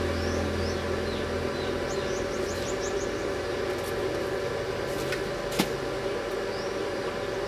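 Steady electric hum of a welding machine standing by, with birds chirping in the first few seconds and a sharp click about five and a half seconds in.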